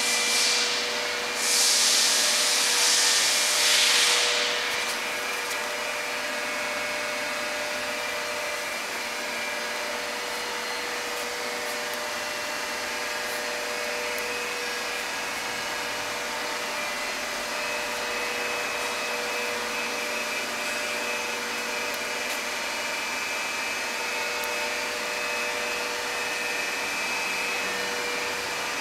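Precisionlap 48 lapping machine running: a steady mechanical hum with a held whining tone. A loud hiss sounds twice in the first four seconds or so.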